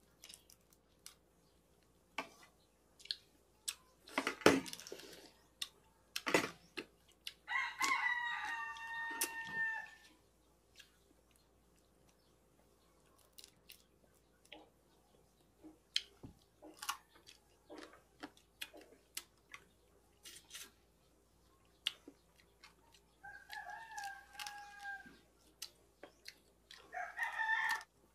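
Rooster crowing: one long crow about eight seconds in and two shorter crows near the end. Between them come scattered sharp clicks and knocks of eating at a table, the loudest a sharp knock about four seconds in.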